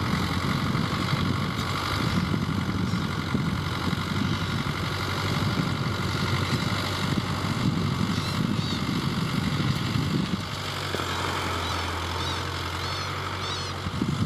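Tractor engine running steadily while ploughing. About ten seconds in it settles into a smoother, slightly quieter hum, then picks up again near the end.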